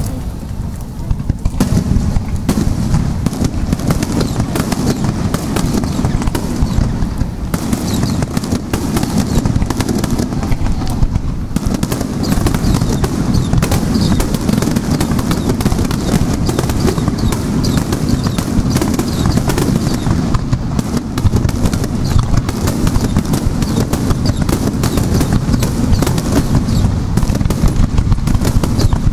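Aerial fireworks bursting in a dense, rapid-fire barrage, the booms overlapping into an unbroken rumble with no pause between shells.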